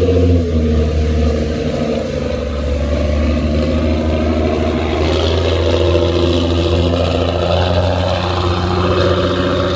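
An engine running steadily, a loud low drone with several steady tones layered over it.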